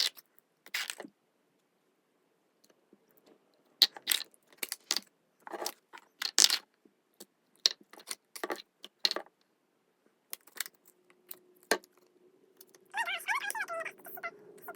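Small plastic slime containers being handled and opened: a scattered run of sharp clicks and snaps with short gaps between them.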